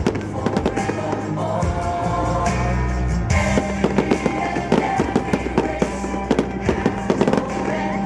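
Fireworks going off in quick succession with many sharp pops and crackles, over a medley of Singapore National Day songs.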